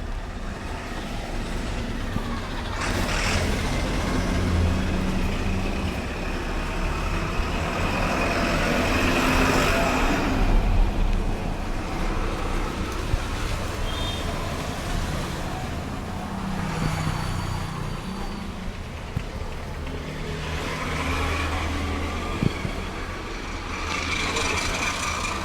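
Road traffic passing: engines and tyres swell up and fade away every several seconds as vehicles go by. A few short sharp clicks stand out above it.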